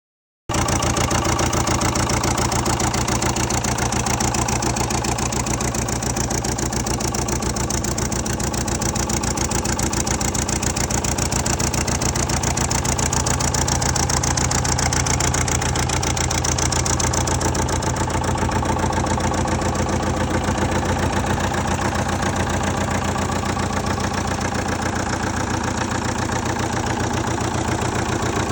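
Engine of a Carlton 7500 stump grinder running steadily at an even speed.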